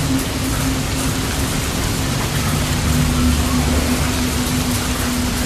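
Heavy rain pouring steadily onto roofs and pavement, a dense even hiss. Under it runs a steady low hum.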